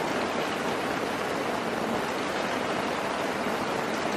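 Heavy rain falling steadily on a tarp shelter overhead: an even hiss with no breaks.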